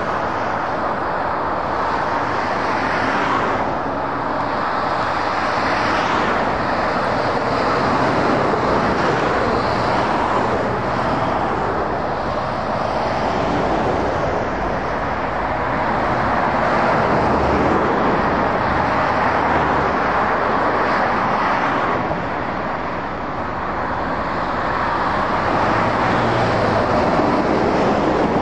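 Busy motorway traffic: a continuous stream of lorries and cars passing, tyre noise and diesel engines swelling and easing as each nearby vehicle goes by, with a low engine hum from passing lorries at times.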